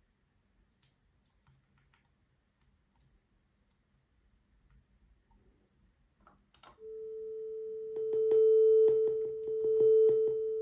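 A steady pure test tone played through a Topping D10 Balanced DAC starts about two-thirds of the way in, after near silence with a few faint ticks. Near the end the volume is stepped up and down and each step cracks as a sharp click in the tone, a rapid run of them, which is typical of the DAC applying each volume change instantly instead of ramping it.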